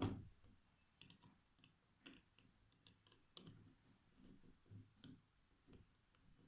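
Faint clicks, taps and small knocks of a screwdriver working the terminal screws of a plastic bulb holder as the wires are unscrewed, with a louder knock at the very start.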